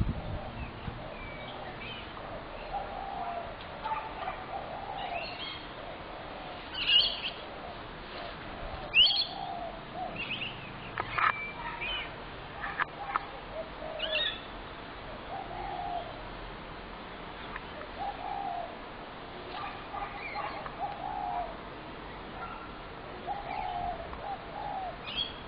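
Spotted doves cooing over and over, low calls coming every second or two. Sharp, high bird chirps break in now and then and are the loudest sounds, with two standing out in the first half.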